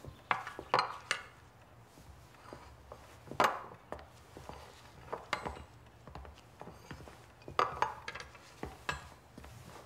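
A scattered series of sharp clicks and knocks, like small household objects being handled, in a small room.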